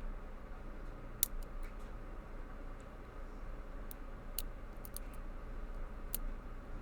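Small, sharp metallic clicks of a lock pick working inside a Master Lock dimple padlock, a handful of scattered ticks with the clearest about a second in, over a steady low electrical hum.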